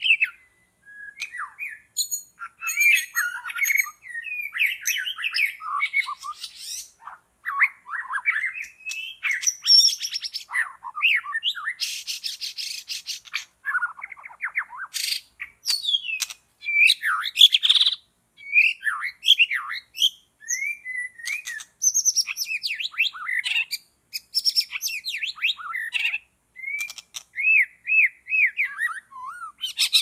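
White-rumped shama singing a loud, varied song of quick whistles, trills and chattering notes in short phrases, with brief pauses between them.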